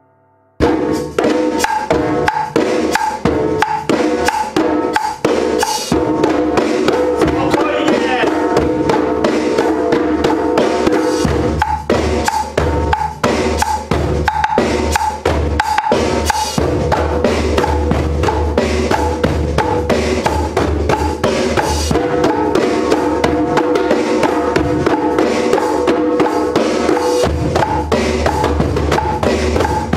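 Several djembes played together by hand in a fast, steady rhythm, with deep bass strokes under sharper slaps, starting suddenly about half a second in.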